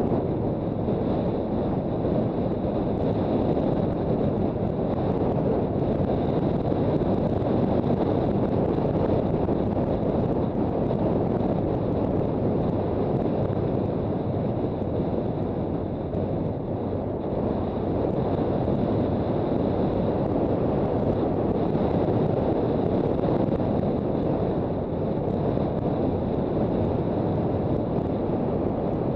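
Steady wind rush on the microphone of a Honda CB400 Super Bold'or being ridden at speed, with the motorcycle's engine running underneath.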